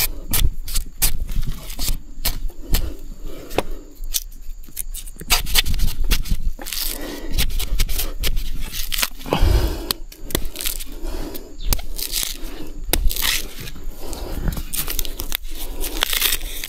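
Dry bamboo stems, leaves and shoot husks crackling, snapping and tearing as young ruak bamboo shoots are broken off and handled, with many sharp snaps and rustling.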